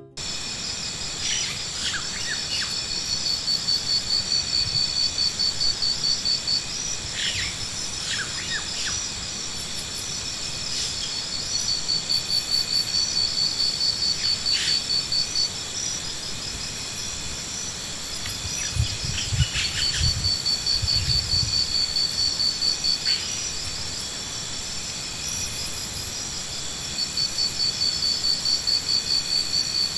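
Insects trilling outdoors: a high pulsing trill in phrases a few seconds long that come back about every eight seconds, over a steady high insect hum. Short chirps come now and then, and a few dull low thumps sound around the middle.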